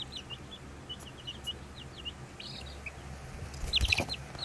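Two-week-old chicks peeping, a steady run of short falling peeps. Near the end comes a louder flurry of peeps with a brief rustle.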